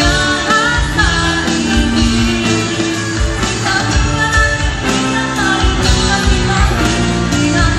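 Live pop-rock band playing: a young woman singing lead into a microphone over electric guitars, bass guitar, keyboard and drums.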